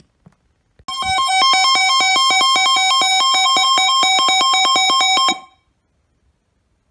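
Emergency Alert System attention tone broadcast over FM radio: a loud, harsh electronic alarm tone that begins about a second in and cuts off suddenly after about four and a half seconds, signalling the start of a severe thunderstorm warning.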